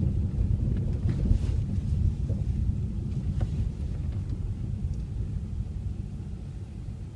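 Low, steady rumble of a Mazda 3 driving on a snowy road, heard from inside the cabin: road, tyre and engine noise, growing quieter over the last few seconds.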